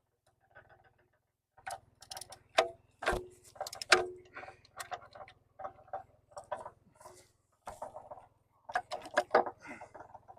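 Irregular metallic clicking and clanking of a wrench working the bolt on a mini excavator's quick hitch, with two louder metal knocks about three and four seconds in that ring briefly.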